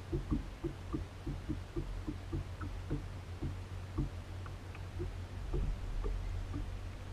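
Spinning reel being cranked, giving a quick run of light ticks, about four a second at first and then sparser, over a steady low rumble.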